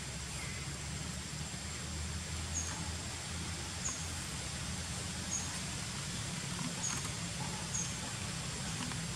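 Outdoor ambience with a steady low hum and a short, faint, high chirp repeated five times, about every second and a half.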